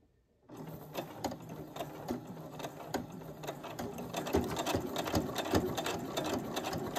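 Singer electric sewing machine stitching back and forth over a piece of twine on a fabric-covered flap, its needle running in a fast, even clicking. It starts about half a second in and grows a little louder in the second half.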